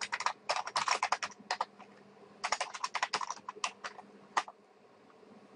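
Typing on a computer keyboard: quick runs of keystrokes, a short pause about two seconds in, then a few last strokes that stop about four and a half seconds in.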